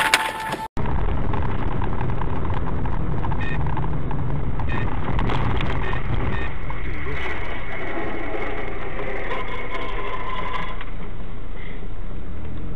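Steady road and engine noise of a moving car, as picked up by a dashboard camera.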